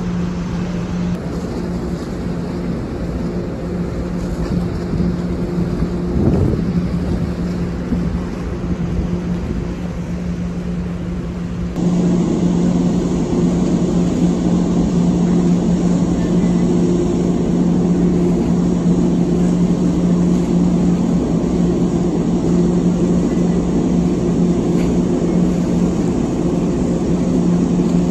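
Steady low hum of a large ferry's engines and shipboard machinery, with a noisy rush over it; the sound steps up louder about twelve seconds in.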